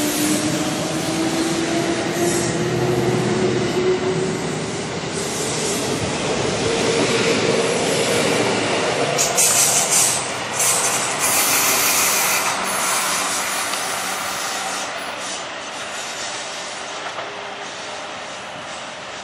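Kintetsu electric commuter train running past at speed: wheel and rail noise with a whine that rises in pitch over the first several seconds. Around the middle come bursts of high-pitched wheel squeal, and the noise eases off toward the end.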